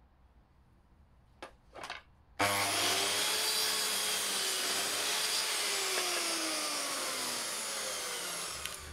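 Electric mitre saw starting up a couple of seconds in and cutting through a wooden staircase spindle to trim its top to length, its motor whining steadily and then winding down with a falling pitch near the end. Two light knocks come before it as the spindle is set against the saw's stop.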